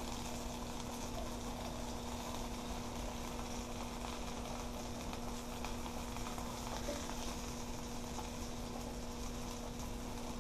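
Potato cakes sizzling steadily as they fry in a nonstick pan, over a steady low hum.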